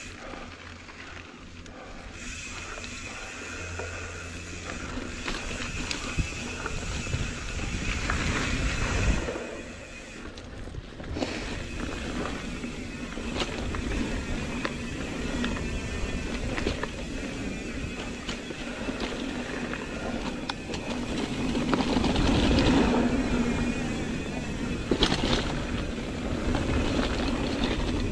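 Mountain bike riding over a dirt forest singletrack: continuous tyre and wind noise with frequent rattles and knocks from the bike over bumps, loudest around two-thirds of the way through.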